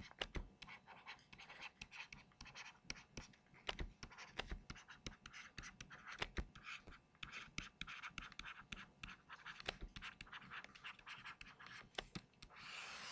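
Stylus tapping and scratching across a tablet screen as handwritten letters are drawn, many quick clicks and short scrapes, faint. Near the end comes one longer continuous scrape as a line is drawn under the heading.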